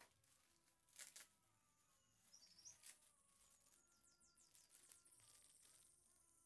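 Near silence: a few faint knocks and plastic rustles from a cardboard box and a plastic bag of powder being handled, with faint chirping in the background.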